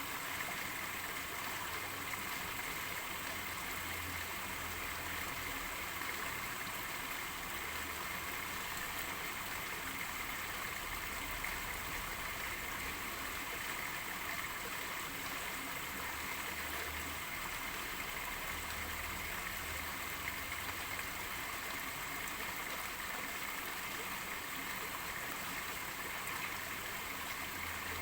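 Steady rain falling, an even rushing hiss of water with no break or change.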